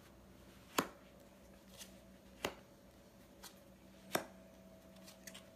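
Playing cards being dealt and flipped face up onto a carpeted surface: a few short, sharp card clicks, one every second or two, over a faint steady hum.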